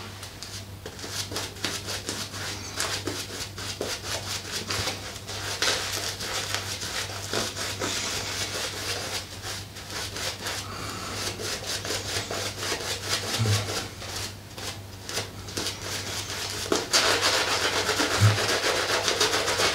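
Shaving brush swirling soap lather over a stubbled face: a continuous bristly rubbing and swishing of the brush against skin, louder near the end.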